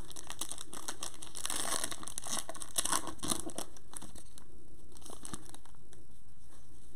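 Wrapper of a Donruss Optic Choice basketball card pack crinkling and tearing as it is ripped open by hand. It is busiest in the first four seconds, then fades to a light rustle as the cards are slid out.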